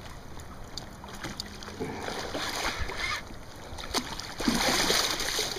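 Water lapping and splashing around a kayak hull, with some wind on the microphone. About four and a half seconds in, a louder rush of splashing starts as the hooked tarpon thrashes at the surface beside the kayak.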